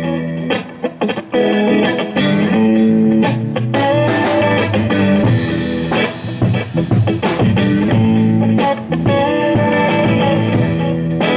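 Live band music with electric guitars playing an instrumental passage, without singing.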